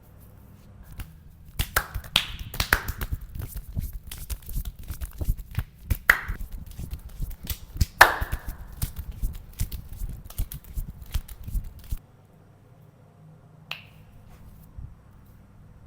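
Vigorous hand massage: a fast run of slaps and pats with several sharp finger snaps mixed in, breaking off about three-quarters of the way through, then one lone snap.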